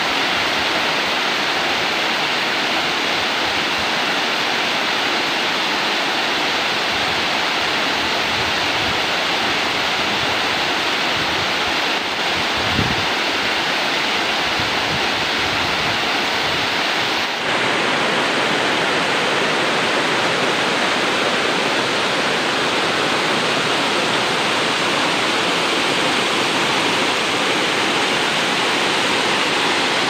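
Waterfall: white water pouring over rock in a steady, loud rush, its tone shifting slightly about halfway through.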